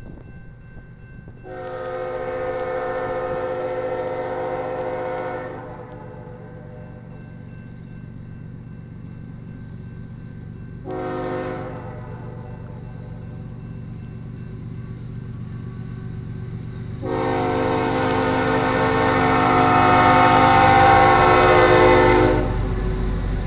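Air horn of the lead locomotive BNSF 8052, a GE ES44C4, sounding three blasts, long, short, long, the warning for a grade crossing. The last blast is the loudest. Under the horn, the low rumble of the approaching double-stack freight train grows and is heaviest as the locomotive reaches the crossing near the end.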